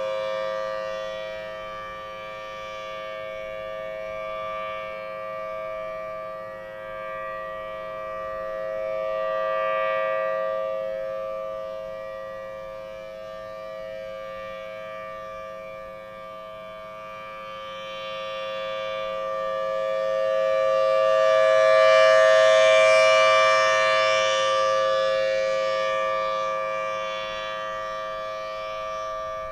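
Federal Signal Thunderbolt 1000T outdoor warning siren sounding its monthly test as a steady two-tone chord, with no rise or fall in pitch. It swells louder and fades about every twelve seconds as the rotating horn sweeps past, loudest about 22 seconds in.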